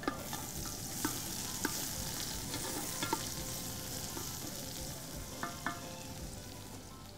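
Chopped onions frying in oil in a large metal pot, sizzling steadily as they brown, while a wooden spoon stirs them with several light knocks and scrapes against the pot.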